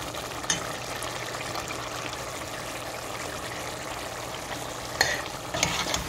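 Thick mutton stew sizzling and bubbling in a pot as a metal spoon stirs it, with a couple of brief clicks of the spoon against the pot, about half a second in and again about five seconds in.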